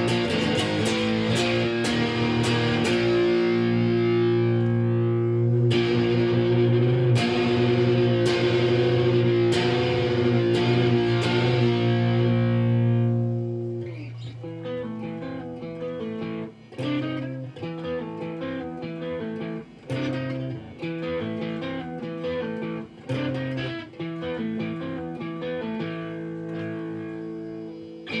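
Telecaster-style electric guitar played through an amplifier, with no singing: sustained, ringing chords for about the first half, then it drops quieter into short, choppy picked notes with brief breaks between phrases.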